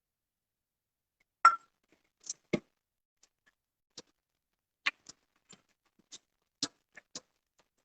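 Irregular short knocks and taps, about a dozen, from kneading flour dough by hand in a bowl. The loudest knock comes about a second and a half in.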